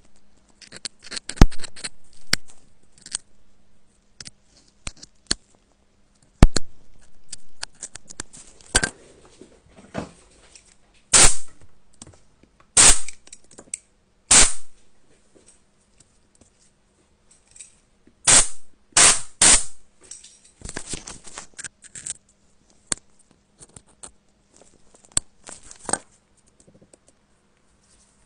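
Close-up scraping and tapping of small cleaning tools on an iPhone's metal frame around the ring/silent switch, working dirt out of the slot. The sound comes as separate short strokes and sharp clicks with pauses between them, with a cluster of louder strokes in the middle.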